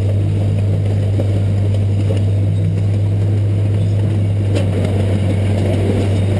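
A miniature zoo train running: a steady, loud low engine hum with a rumble under it.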